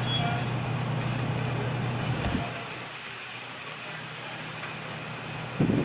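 Fire truck engine running with a steady low hum over a hiss of outdoor noise. The hum falls away about two and a half seconds in, and a brief thump comes near the end.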